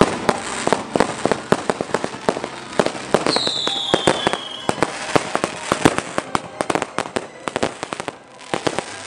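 Consumer fireworks going off on a street: a dense run of sharp cracks and bangs throughout, with a high whistle sliding down in pitch for about a second and a half near the middle.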